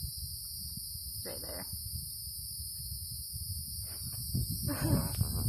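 Steady high-pitched buzzing of an insect chorus, over a low rumble, with a short fainter sound about a second in and brief pitched sounds near the end.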